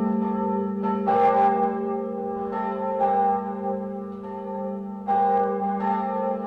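Bells struck several times, a second or two apart, each stroke ringing on long over a steady low hum.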